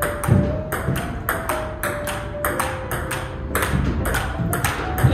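Table tennis rally: the ball clicking back and forth off the paddles and the table, about three hits a second.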